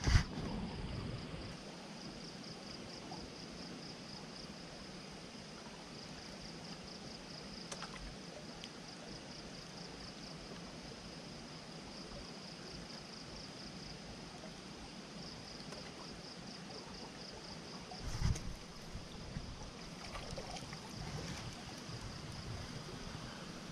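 Steady rush of a swollen, fast-flowing river, with a high, even pulsing trill over it. A loud knock comes at the very start and a softer thump about 18 seconds in.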